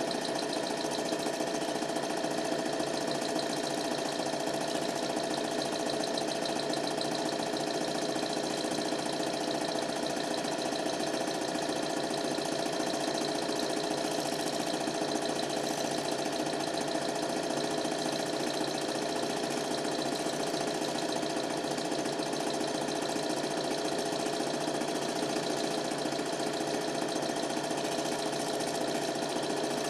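Super 8 film projector running steadily, its motor whirring and the film transport clattering without a break.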